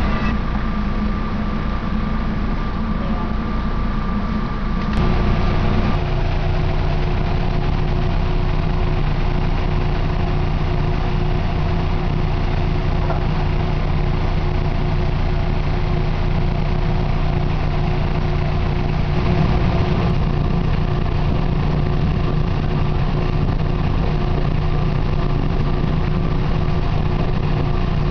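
SEPTA electric commuter train heard from inside the car: a steady hum and rumble of its running gear and wheels on the rails. The sound changes abruptly about five seconds in, then carries on steadily.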